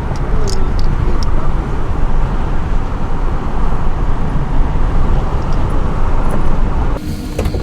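Car on the move, heard from inside: a loud, steady rush of road and wind noise, heaviest in the low end. It changes abruptly near the end.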